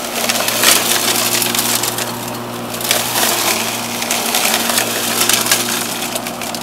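Home-built electric lawnmower's 1 hp Century electric motor humming steadily under load while its blade chops through tall brush, with a dense crackling and snapping of stems and debris being cut and thrown out. The motor keeps its speed and does not stall.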